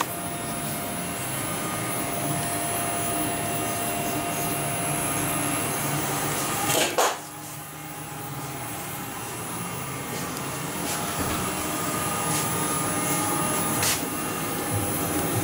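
Steady mechanical whirring hum with a few faint steady tones in it, and a short swishing sweep about seven seconds in.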